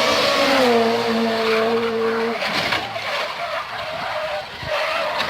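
Rally car engine note drops in pitch, holds for a moment, then stops a little over two seconds in. Tyres skid and scrabble with a few sharp knocks after that.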